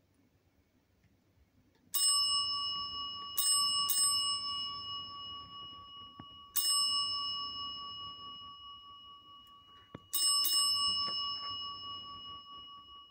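Chrome desk service bell struck by a solenoid-driven hammer, ringing once for each terminal bell character: six dings at uneven intervals, the last two in quick succession near the end. Each ding rings on and slowly fades.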